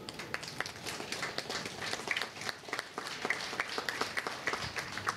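Audience clapping: light, scattered applause with the separate claps easy to pick out.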